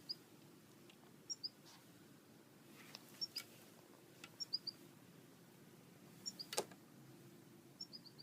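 Small bird chirping softly: short high chirps in groups of two or three, repeated about every one to two seconds, with a sharp click about two-thirds of the way through.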